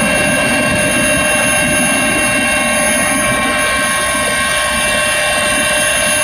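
Helicopter cabin noise in level flight: a steady whine of the turbine engine, with several fixed high tones, over a loud, even low rumble from the rotors and airframe.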